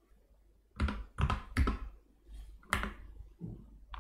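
Computer keyboard keystrokes and mouse clicks: about five short, sharp clicks, the first about a second in, three of them close together in the next second.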